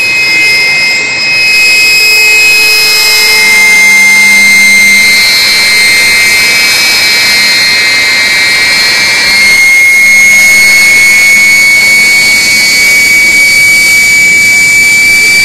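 Fouga Magister's twin Turbomeca Marboré turbojets running loud with a steady high whine as the aircraft taxis. The whine creeps slightly higher in pitch over the last few seconds.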